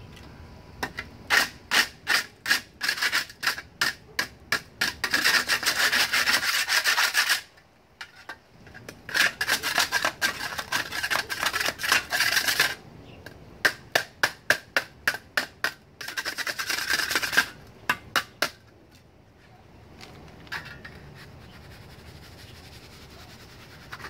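Steel hand trowel scraping over wet cement mix in quick, repeated strokes. The strokes come in several bursts with short pauses between them, some bursts a rapid run of scrapes.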